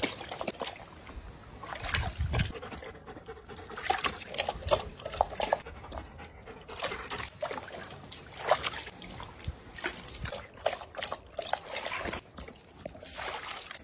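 German shepherds lapping water from plastic buckets: many quick, irregular wet laps and small splashes.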